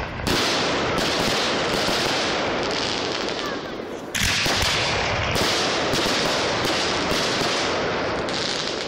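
Large professional fireworks display: shells bursting one after another, a sharp report every half second to second. The bangs run together without a break.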